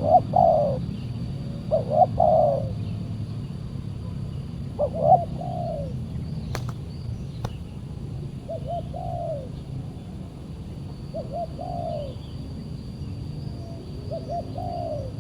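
Spotted doves cooing: about six short, repeated coo phrases a few seconds apart. Two sharp clicks come about halfway through, over a steady low rumble.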